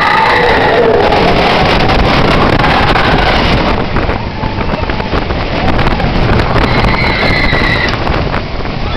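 Expedition Everest's steel roller coaster train rumbling along its track at speed, with heavy wind buffeting the microphone. Riders scream at the start and again about seven seconds in.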